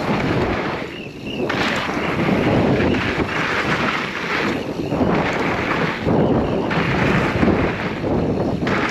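Wind buffeting a microphone while a mountain bike rides a dirt trail, with tyre and trail rumble; the noise swells and dips every second or so.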